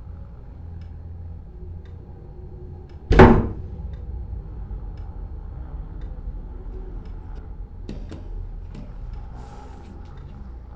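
A door bangs once, loudly, about three seconds in, over a low steady hum; a few faint clicks follow near the end.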